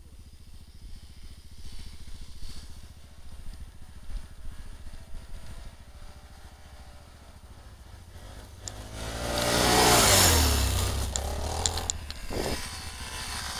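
Low engine rumble of vehicles running at a distance. About nine seconds in, a small ATV, a Yamaha Grizzly 125, comes past close by, its engine rising and falling in pitch as the rider works the throttle, loudest just after ten seconds and fading out.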